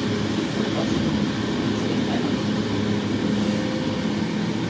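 Regional train of n-Wagen coaches running along the track: a steady rumble with a constant low hum. A faint higher tone joins in about three seconds in.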